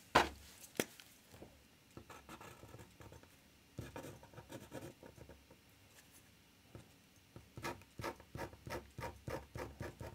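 Ink pen scratching on paper in quick short hatching strokes, about four a second, that come faster near the end. Near the start there are two sharp clicks as a pen is put down and another picked up on the wooden desk.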